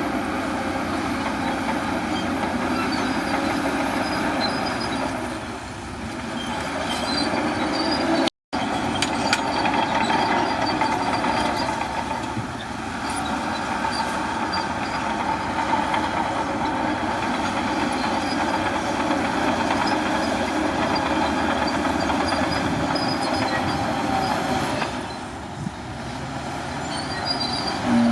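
Crawler bulldozer working, its diesel engine running under a steady din of steel tracks clanking and squealing, broken by a split-second dropout about eight seconds in.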